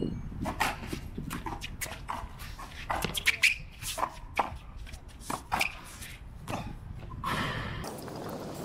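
Racquetball rally on an outdoor concrete court: irregular sharp smacks of the ball off the racquets and the concrete front wall, mixed with the players' footsteps and shoe scuffs. The hits come thickest about three to five and a half seconds in.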